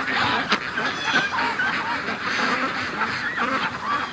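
A large flock of domestic ducks quacking and calling together, many short calls overlapping without a break.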